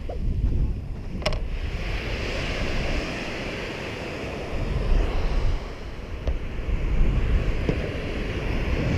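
Wind buffeting the microphone over the steady wash of surf breaking on a beach, with a single sharp click about a second in.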